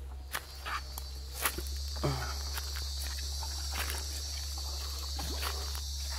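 Footsteps in sandals crunching on dry leaf litter, a few sharp steps in the first couple of seconds. A steady high-pitched insect drone sets in about a second and a half in and holds.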